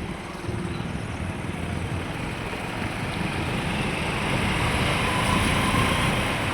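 Steady rushing road and wind noise of a vehicle on the move, growing a little louder toward the end.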